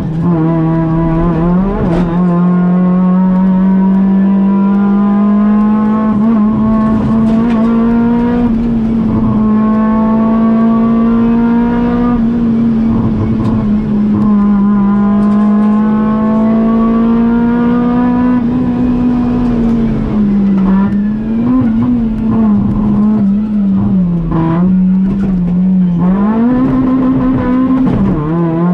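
Kia rally car's engine heard from inside the stripped cabin, driven hard on a stage: the note climbs again and again as it pulls through the gears, with short dips at each change. In the second half the revs drop and pick up several times as it lifts for a run of corners.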